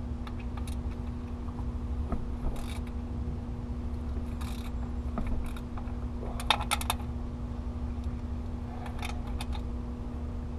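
Hand ratchet and socket loosening bolts: scattered sharp metallic clicks and clinks, with a quick run of ratchet clicks about six and a half seconds in and another about nine seconds in. A steady low hum runs underneath.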